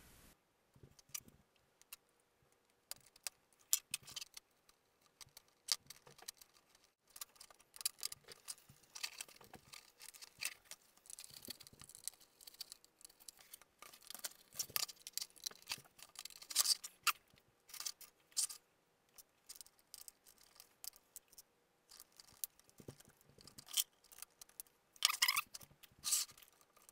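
Scattered soft clicks, taps and scrapes as hands handle a foam RC flying wing and fit a plastic control horn to an elevon.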